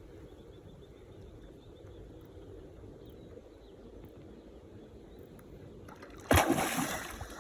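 A low, steady background, then a single sudden loud splash on the water about six seconds in that dies away over about a second.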